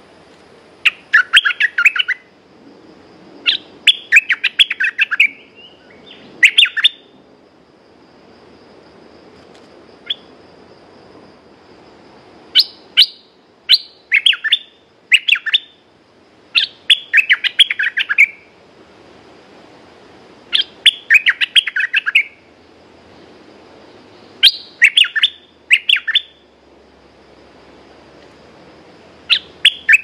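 Caged decoy bulbul singing: short, lively phrases of quick bubbly chirps, one every few seconds with quiet gaps between, used as a lure call to draw in wild birds.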